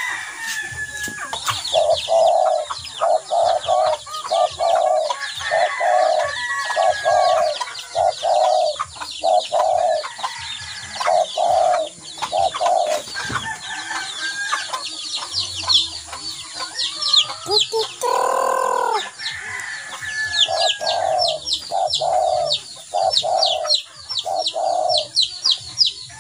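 Chickens clucking in a steady run of evenly spaced clucks, with many quick high chirps throughout. One longer pitched call rings out about eighteen seconds in, with a pause in the clucking around it.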